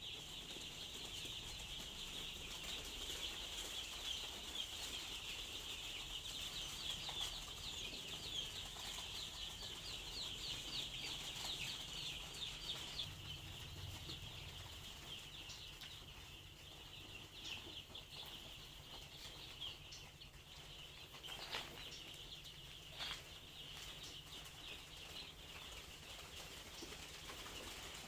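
A flock of five-day-old cross-bred chicks peeping continuously in a dense chorus of short, high peeps, busiest in the first half. There are two short knocks in the second half.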